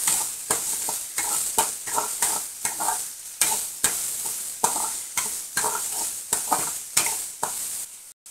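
Chopped onions sizzling in hot oil in a metal kadai while a metal spatula stirs and scrapes them around the pan, about two scrapes a second over a steady hiss. The sound cuts off suddenly near the end.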